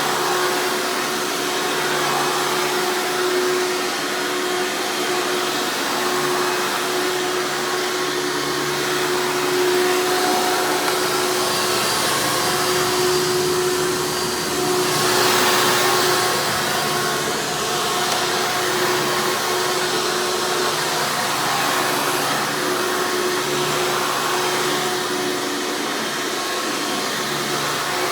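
1995 Hoover Encore Supreme U5059-930 upright vacuum running steadily and loud, a motor whine over the rush of air. About halfway through it swells briefly louder with more air rush.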